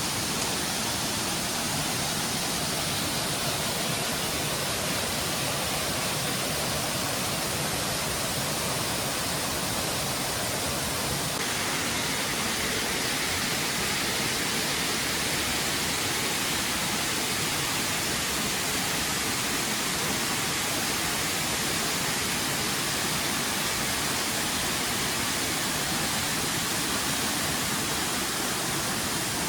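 Monsoon-fed waterfall in full flow: a steady, even rush of falling water, turning a little hissier about eleven seconds in.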